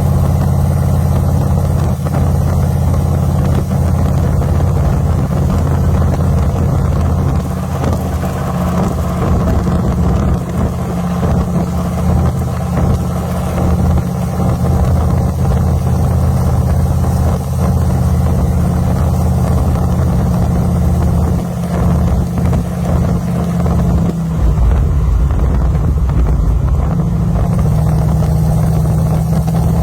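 1963 Jeep driving, its engine and road drone under heavy wind buffeting on the microphone. The low drone shifts in pitch about 24 seconds in.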